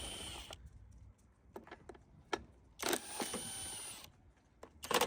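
Hands and hand tools working on a lawnmower's engine cover to get at the recoil starter: a few sharp clicks, then two longer bursts of scraping and rattling, the louder one near the end.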